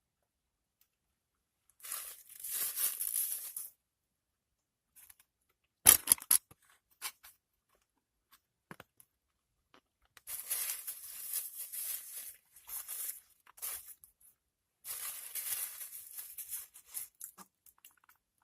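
Packaging rustling and tearing in several crackly bursts of one to two seconds each, with a sharp knock about six seconds in.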